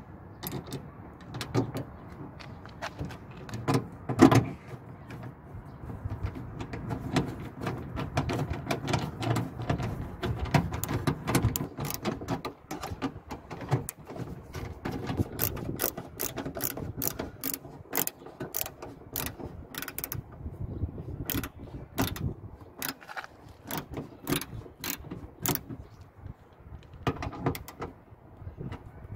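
Hand socket driver turning the 8 mm mounting bolts of a new lift gate solenoid into the tailgate's metal bracket. Metal scraping and handling clatter, a loud knock about four seconds in, then a run of sharp clicks about twice a second in the second half.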